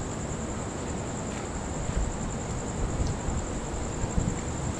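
Gusty thunderstorm outflow wind buffeting the microphone in low rumbling swells, over a steady high-pitched tone.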